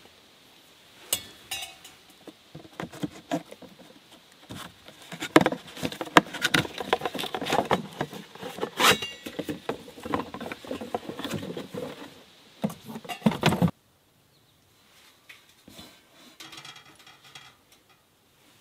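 Cardboard packaging rustling and scraping while stainless steel stove pipe sections are handled and taken out of their boxes, with many sharp metallic taps and clinks of the pipes. The busy handling cuts off suddenly about 14 seconds in, leaving only faint scattered handling sounds.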